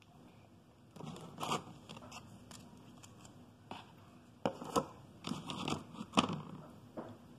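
Several clusters of short clicks and scrapes as gingerbread-house pieces are handled, pressed together and set down on a hard countertop, with a plastic icing bag rustling; the loudest cluster comes about six seconds in.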